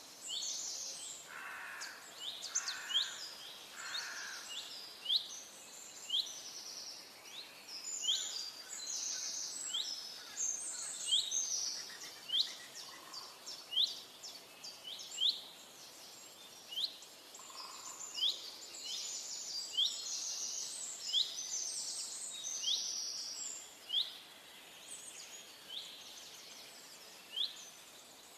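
Several songbirds calling in a forest, many short high chirps and quick pitch sweeps overlapping throughout, with a lower call given three times near the start. Underneath lies a faint steady hiss of a running creek.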